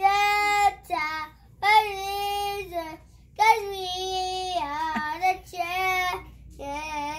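A five-year-old boy singing alone, without accompaniment, in several drawn-out phrases with short breaks for breath between them.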